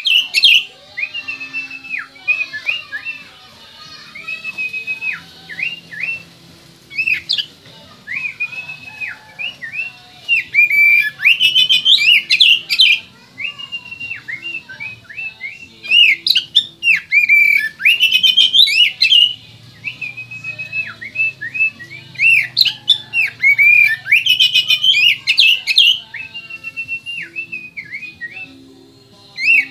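Oriental magpie-robin (kacer) singing: a run of clear whistled notes, broken by three louder stretches of fast, varied chattering phrases, about ten, sixteen and twenty-three seconds in.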